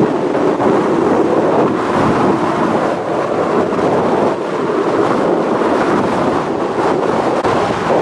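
Storm surf breaking on a sandy beach, a steady loud rush of waves, with wind buffeting the microphone.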